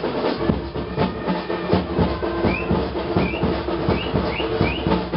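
Procession drums beating fast and irregularly over a steady sustained drone, with a string of short, high, rising chirps in the second half.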